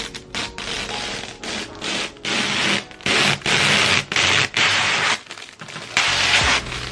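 Plastic protective wrapping being pulled and crinkled off a new suitcase, in a series of rustling bursts.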